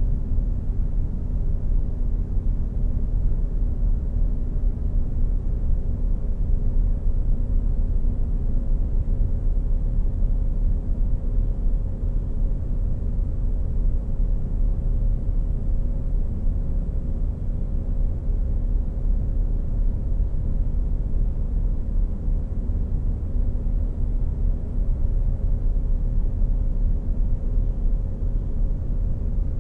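Steady low rumble with a faint constant hum above it.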